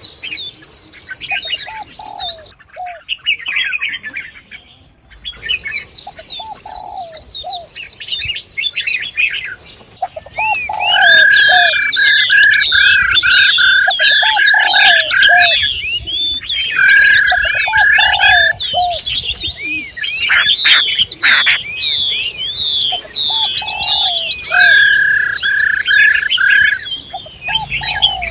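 Several songbirds calling together: rapid high chattering trills, a whistled note repeated in quick series from about ten seconds in, and short lower notes recurring every few seconds.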